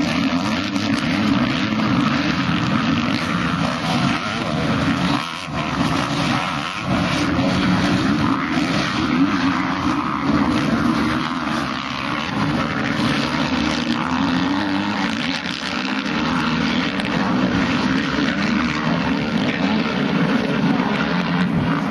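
Engines of several motocross bikes running at race pace at once, blending into one continuous drone.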